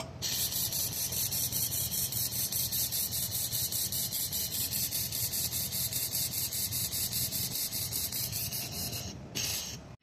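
Hand-held fiber laser welder running a weld on steel square tube: a steady bright hiss and sizzle of the weld, with a fast regular pulsing through it. It stops briefly near the end, fires again for a moment, then cuts off.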